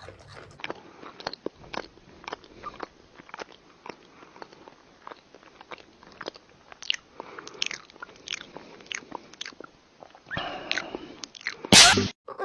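A person eating noisily close to the microphone: a run of sharp, irregular crunches and mouth clicks. Near the end comes a very loud, harsh burst.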